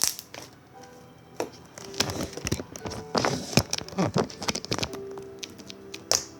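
Slime being squished and kneaded by hand, giving off irregular sticky crackles and popping clicks, with faint background music.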